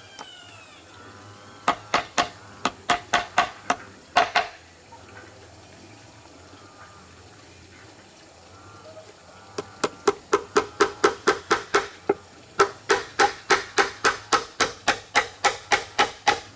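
Hammer driving nails into the wooden boards of a box frame: a run of about ten sharp strikes, a pause, then a longer steady run of about three blows a second.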